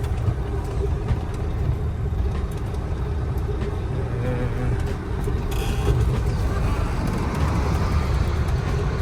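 Heavy truck engine running with a steady low rumble.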